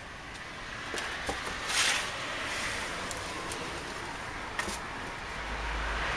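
Metal baking trays knocking and scraping as they are slid into a brick oven, the loudest a short scrape just under two seconds in, over a steady background noise that gains a low rumble near the end.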